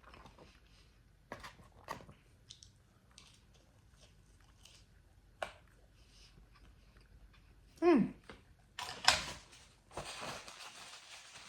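Close-miked eating of a fried-chicken fast-food meal: chewing, with scattered crunchy clicks. A short hummed vocal sound comes about eight seconds in, then a louder noisy crunching and rustling stretch near the end.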